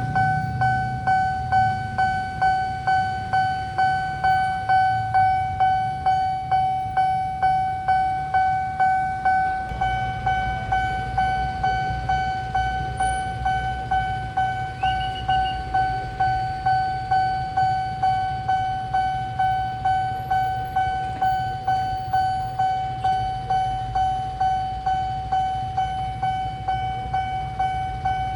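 Railway level-crossing alarm bell ringing: a single bright electronic bell tone struck over and over, about two strikes a second, each dying away before the next. A low rumble joins underneath about ten seconds in.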